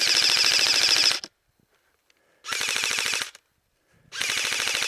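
Airsoft rifle firing three bursts of full-auto fire, a rapid even rattle of shots. The first burst lasts a little over a second, and two shorter ones follow about two and a half and four seconds in.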